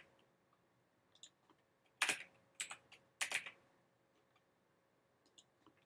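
About half a dozen separate computer keyboard keystrokes, spaced irregularly, over a faint steady hum.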